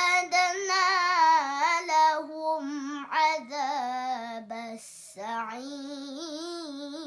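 A young girl's voice reciting the Quran in melodic tilawah style, drawing out long ornamented notes with a wavering pitch. There is a brief break about five seconds in, after which the recitation continues.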